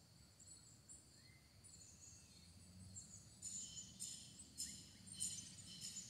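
Faint crickets chirping in short, high repeated pulses that become stronger and more frequent from about halfway in. A faint bird call comes about a second in.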